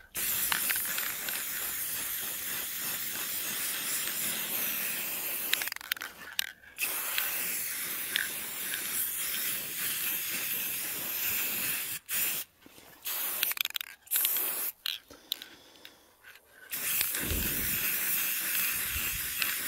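An aerosol can of Rust-Oleum 2X gloss black spray paint spraying a steady hiss in several long bursts, with short breaks between them as the nozzle is released and pressed again.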